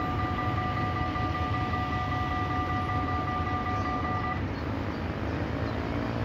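Dutch level-crossing electronic (EBA) bells ringing steadily as the barriers rise, cutting off about four seconds in as the barriers come fully up, over a steady rumble of road traffic; near the end a car engine starts to rev up.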